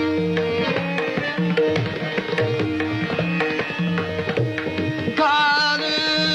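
Tabla playing a fast rhythmic passage in Hindustani classical music: quick ringing strokes on the small right-hand drum and deep bass strokes on the left-hand drum that bend in pitch. About five seconds in, a singing voice comes in over the drumming.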